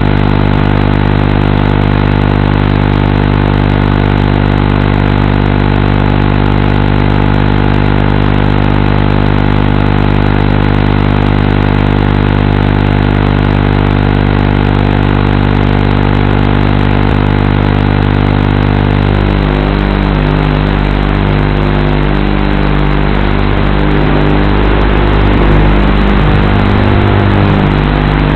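FPV racing quadcopter's brushless motors heard through the onboard camera: a steady hum while the quad sits on the ground, then about two-thirds of the way through the pitch starts to waver and shift and grows a little louder as the throttle changes and it lifts off.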